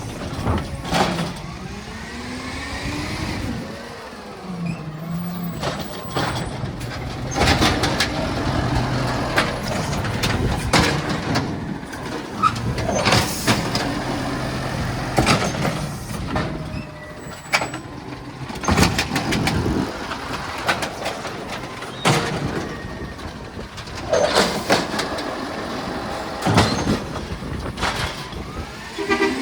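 Recycling collection truck at work: its engine runs steadily, with some rises and falls, while loud clanks and bangs come every few seconds as it collects.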